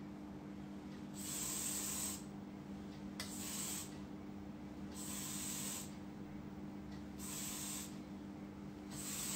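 Aerosol can of hard-hold hairspray spraying in short hissing bursts of about a second each, four times, with a fifth starting near the end.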